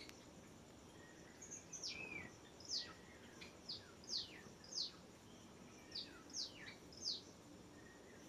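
A bird's string of short, high chirps, each sweeping steeply down in pitch, about ten in all over some six seconds, over a faint steady background hiss.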